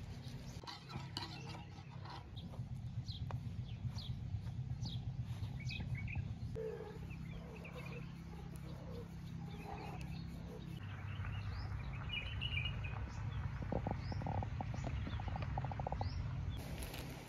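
Small birds chirping, many short falling calls, over a steady low background hum. A brief run of rapid ticks comes about three-quarters of the way through.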